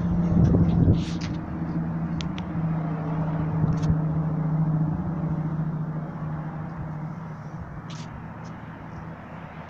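A motor vehicle's engine running with a steady low hum that fades gradually through the second half.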